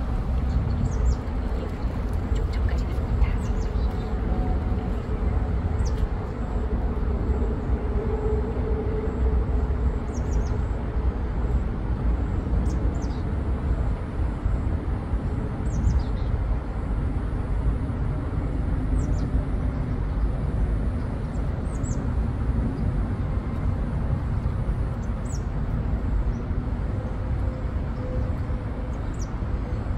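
Outdoor ambience: a steady low rumble throughout, with a dozen or so brief, high, downward chirps from small birds scattered through it.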